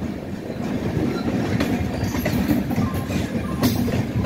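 Passenger train coaches running on the track, heard from alongside the moving train: a steady wheel-on-rail rumble with sharp clicks and clacks as the wheels pass over rail joints.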